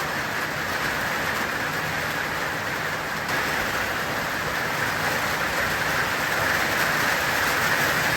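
Heavy rain falling, a steady dense hiss that gets a little louder about three seconds in.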